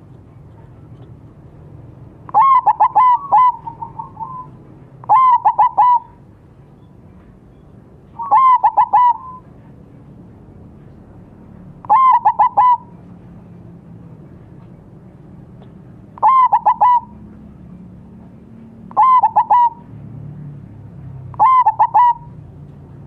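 Zebra dove (perkutut) singing its cooing song: seven short phrases, each a quick run of three to five staccato coos, repeated about every three to four seconds.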